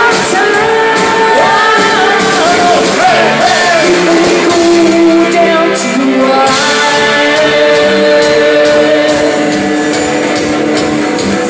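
Loud live gothic rock: a woman singing lead into a microphone over electric guitars, bass and drums, heard from the crowd in a large hall.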